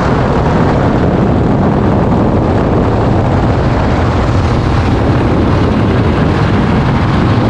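Motorcycle engine running steadily at road speed, with heavy wind rush on the microphone.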